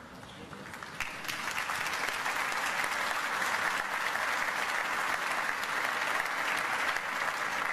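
Audience applauding: the clapping starts about a second in and swells into steady applause.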